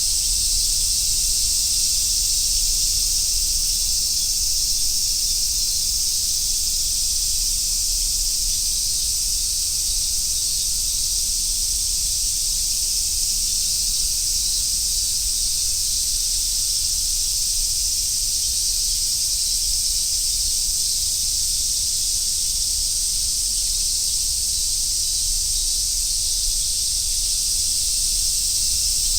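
A chorus of summer cicadas singing in a steady, unbroken high sizzle that never pauses.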